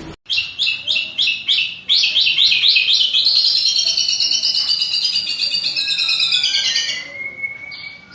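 White-rumped shama (murai batu) singing: a run of sharp, rapidly repeated high notes, then a long unbroken rolling trill lasting about four seconds that trails off near the end.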